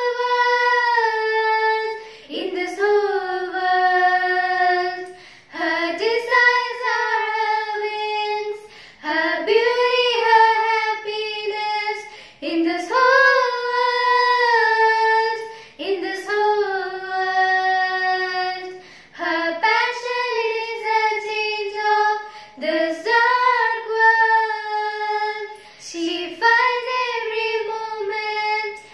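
Two girls singing a song together without accompaniment, in sung phrases of a few seconds each with short breaks for breath between them.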